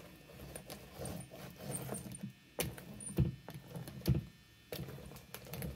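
Small hand roller (brayer) rolling back and forth through thick wet gesso on a canvas, a soft sticky scraping broken by several sharp clicks and knocks.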